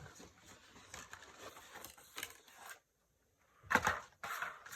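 Small plastic clicks and rustling as a fashion doll and its accessories are handled. There is a brief dead gap about three seconds in, then a louder rustle.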